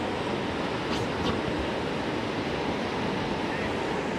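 Steady rush of river water around a raft.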